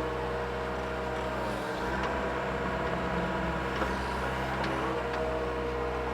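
Mini excavator's diesel engine running steadily under hydraulic load, with a whine from the hydraulics that drops in pitch about a second and a half in and rises again near five seconds as the controls are worked. A couple of faint knocks come through.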